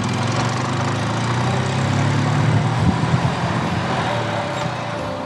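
Golf cart driving along with a steady motor hum that swells towards the middle and eases off near the end.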